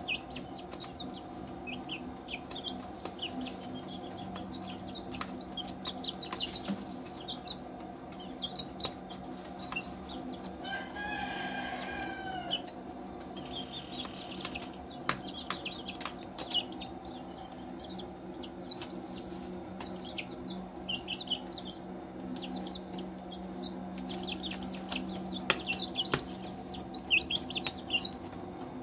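Young chicks cheeping with many short, high chirps as they peck at feed in a plastic tray, with sharp tapping clicks of beaks on the tray that grow louder near the end. One longer call rises above the chirping about eleven seconds in, and a steady low hum runs underneath.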